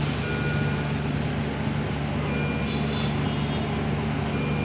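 Steady machine hum of intensive-care equipment, with short, high electronic beeps every couple of seconds.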